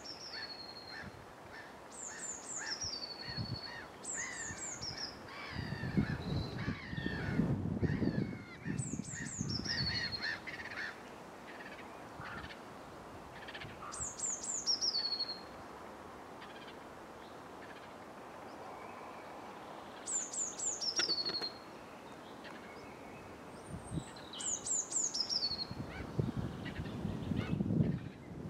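Songbirds singing in leafless woodland: one bird repeats a short, high phrase that falls in pitch, about once every few seconds, with other softer chirps between. A low rumble comes twice, once around the middle and again near the end, louder than the birdsong.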